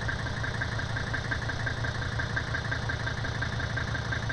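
Mercedes-Benz W126 sedan's engine idling steadily, with an even fine pulsing.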